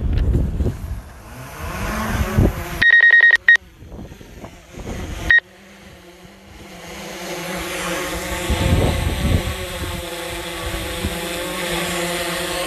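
Mavic 2 Zoom quadcopter taking off: wind rumble, then short electronic beeps about three seconds in and again near five and a half seconds. After that the drone's propellers settle into a steady buzzing hum that grows louder, with wind noise over it.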